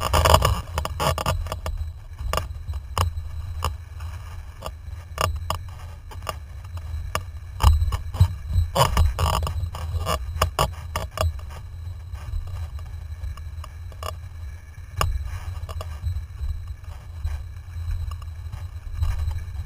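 Windsurf board sailing over chop: a steady low rumble of wind on the microphone, with frequent sharp knocks and splashes as the hull slaps the water. The splashing is heaviest at the start and again about eight to ten seconds in.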